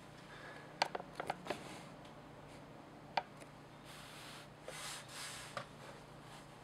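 Hand-handling noises: a quick run of small clicks and taps about a second in, one more click a couple of seconds later, then a brief soft rustle and a last tap near the end.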